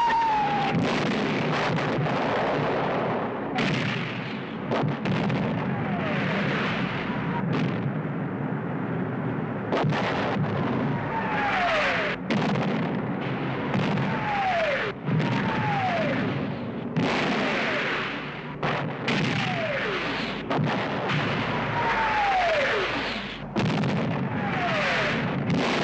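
Air-raid bombing: a continuous barrage of heavy explosions, with bombs whistling down in steeply falling pitch again and again between the blasts.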